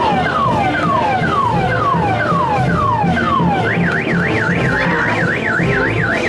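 Electronic car alarm cycling through its tones: a run of falling whoops about twice a second, then from about halfway through a fast up-and-down warble. Music with a steady beat plays underneath.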